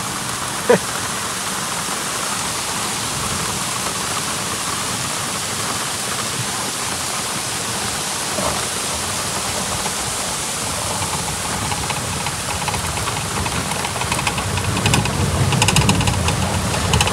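Heavy thunderstorm rain falling steadily, mixed with the rush of muddy runoff pouring down a clay embankment. Near the end, raindrops hit the microphone in a run of quick clicks.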